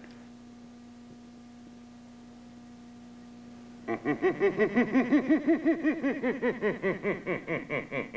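A low steady hum. About four seconds in, a long cackling laugh starts up, a rapid run of 'ha-ha-ha' pulses at about four or five a second.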